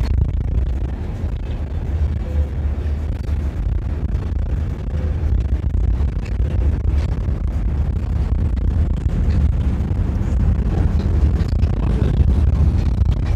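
Steady low drone of a bus's engine and tyres on packed snow, heard from inside at the front of the bus while it drives.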